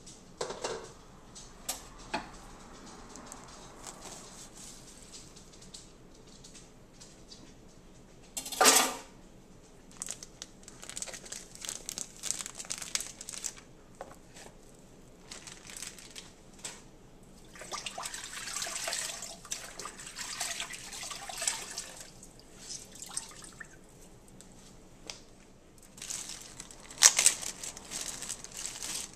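Clear plastic bag and meat wrapping crinkling and rustling in irregular bursts while raw ground beef is handled, with one loud, sharp noise about nine seconds in.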